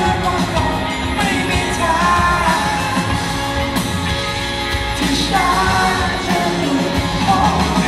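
Live rock band playing a song, with a singer's voice carried over the full band.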